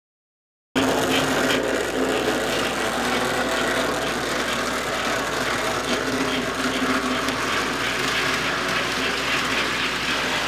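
American Flyer #342 AC 0-8-0 S-gauge steam switcher running under power: a steady whir of its motor and gears with the rattle of its wheels on the track, working hard as it pulls four heavy searchlight cars up a steep grade. The sound starts abruptly about a second in and cuts off suddenly at the end.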